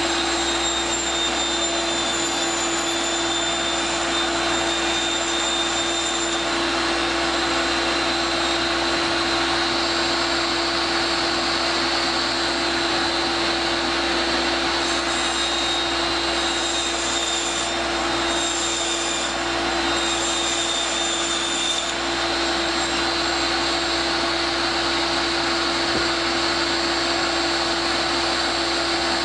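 Steady whir and rush of a motor-driven fan or blower, like a vacuum running, with one constant hum and a faint high whine over it.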